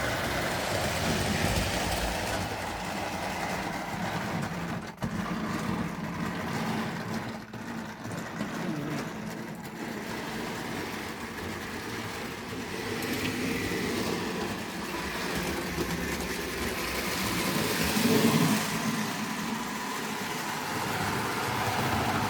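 Model train running on the layout track: the locomotive's small electric motor whirring steadily and its wheels rolling along the rails.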